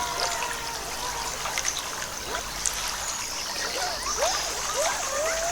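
Forest stream water trickling and gurgling, with a steady hiss and many short rising bubbling notes.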